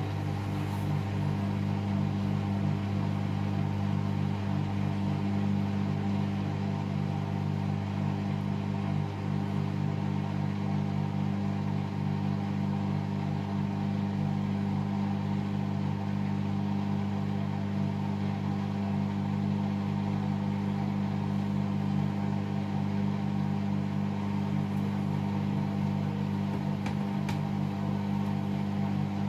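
Hoover All In One washer-dryer running with a steady, unchanging motor hum.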